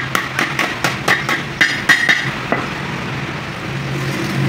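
A hammer striking a truck clutch disc, about ten quick ringing metal taps that stop a little past halfway. A steady low hum runs underneath.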